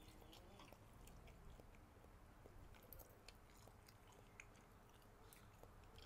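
Faint close-miked chewing of a mouthful of beef noodle soup, with many small scattered clicks.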